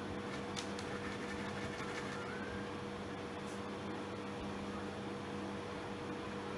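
Steady machine hum of a running room appliance, with a low tone and a higher tone held throughout under a hiss, and a few faint light clicks in the first two seconds.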